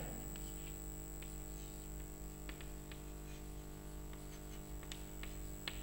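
Chalk writing on a blackboard: faint scratches and a few soft taps as a word is written, over a steady low hum and a thin high whine.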